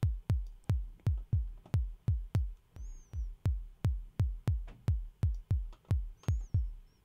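Synthesized kick drum from Logic's ESP software synth, its noise source run through a resonant low-pass filter that the envelope sweeps down. It plays repeated hits, about three a second, each a sharp click followed by a low thump that drops in pitch. The click comes from the envelope's instant attack.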